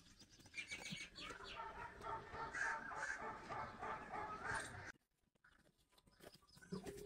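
Chickens clucking in a quick run of short repeated calls, about three or four a second, that cuts off about five seconds in.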